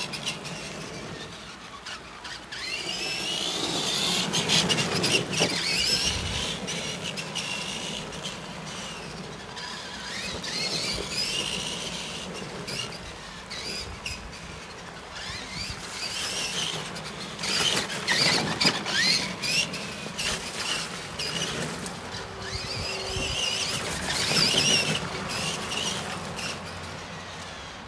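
Tamiya Clodbuster RC monster truck's electric motors and gears whining, the pitch rising and falling as the throttle is worked in repeated bursts of driving. Its tyres hiss through water on wet asphalt.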